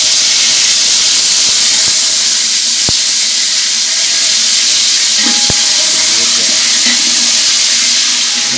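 A steady loud hiss from the stovetop cooking, with a couple of sharp taps of a spatula against a large aluminium cooking pot.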